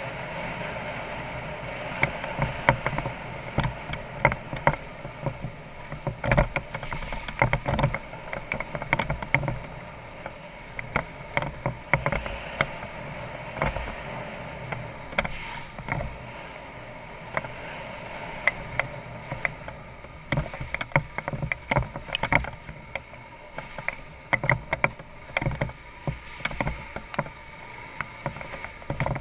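BMW F650GS Dakar single-cylinder motorcycle riding a rough, stony dirt track, heard from a camera mounted on the bike. A steady running noise is broken by frequent sharp knocks and rattles as the bike jolts over stones and ruts.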